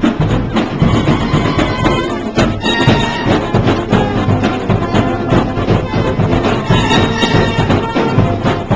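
Brass street marching band playing: held horn notes over a steady drum beat.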